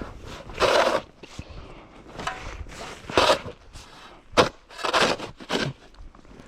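Short crunching, scraping strokes in snow, irregular and roughly one a second, during snow clearing.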